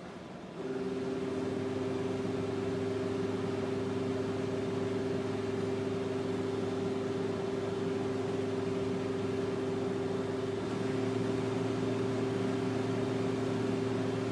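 Evaporative humidifier's fan motor switching on about half a second in and running with a steady hum over an airy whoosh, a little louder near the end.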